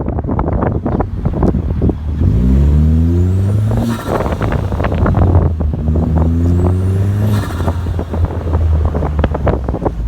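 2010 Hyundai Genesis Coupe's turbocharged 2.0-litre four-cylinder revved twice, each rev rising with a turbo whistle, then fluttering as the throttle snaps shut. The blow-off valve is blocked off, so the boost pressure chatters back through the compressor.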